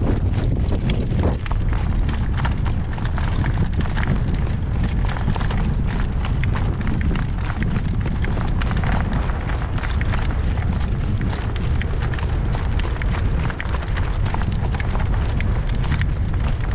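Strong wind buffeting the microphone: a steady, heavy low rumble, with scattered short clicks and rattles over it.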